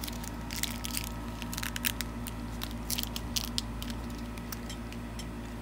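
Foil wrapper of a Pokémon card booster pack crinkling and tearing as it is ripped open by hand, in a run of short crackles that stop about two-thirds of the way through.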